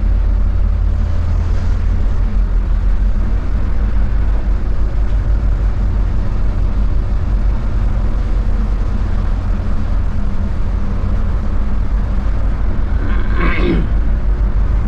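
Steady low drone of a Hyundai coach's engine and tyres heard from the driver's seat while the bus is under way.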